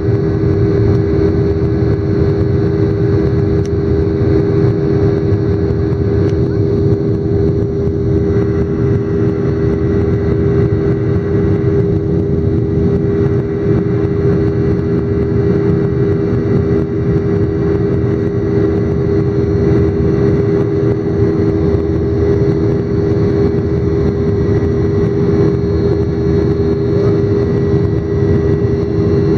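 Jet airliner cabin noise during the climb after takeoff: a steady engine drone with two close humming tones over a dense low rush of air and engine noise.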